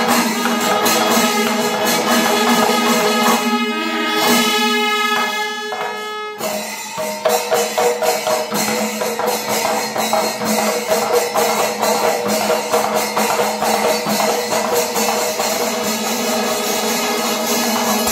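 Panchavadyam ensemble: timila drums and ilathalam cymbals playing rapid strokes, with held horn notes over them. About four seconds in the drumming thins and the horn notes stand out, then the dense strokes come back in suddenly about six seconds in.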